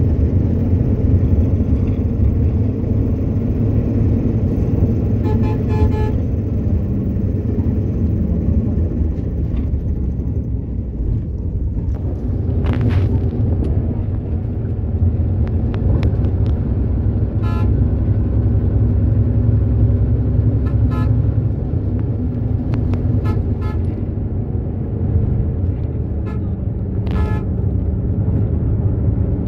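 A bus on the move: a steady low rumble of engine and road noise, with short horn toots sounding again and again.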